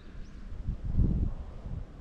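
Wind buffeting the microphone in low, uneven rumbling gusts, strongest about a second in, with one faint short high bird chirp shortly after the start.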